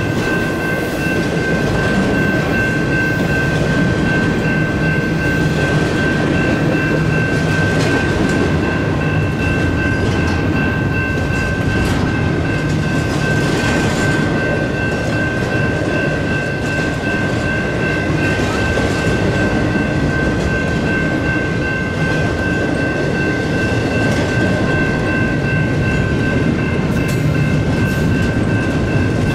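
Freight cars of a double-stack intermodal train rolling steadily past at a grade crossing, a continuous rumble and wheel clatter. Over it, the crossing's electronic bell and mechanical bell ring without a break.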